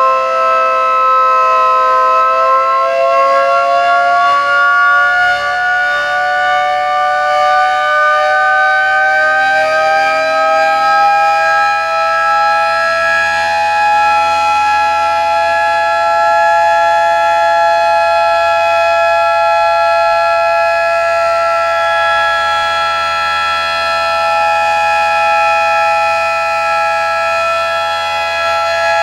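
220 V AC industrial electric motor siren sounding a loud continuous tone; its pitch dips slightly at first, climbs slowly for about ten seconds as the rotor spins up, then holds steady.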